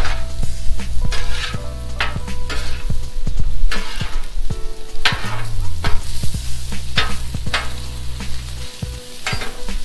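Shrimp and sliced sausage sizzling on a hot Blackstone steel flat-top griddle while a metal spatula repeatedly scrapes across the steel and turns them.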